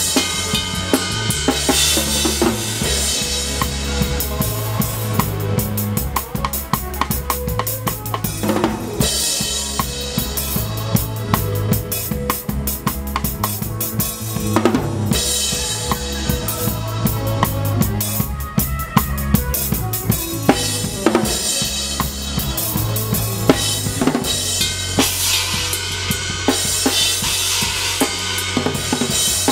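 Drum kit played in a steady rock groove: kick drum, snare with rimshots, and Paiste hi-hats and cymbals shimmering on top. Held low bass notes change every second or so underneath.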